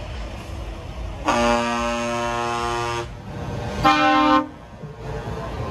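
Truck air horn sounding two blasts, a long one and then a shorter, higher and louder one, over a truck's diesel engine running low underneath.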